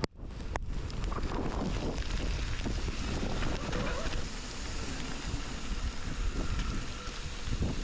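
Wind rushing over a small body-worn camera microphone during a mountain-bike trail descent, with a few sharp knocks from the rough trail. The rushing is steady, and there is a brief dropout right at the start.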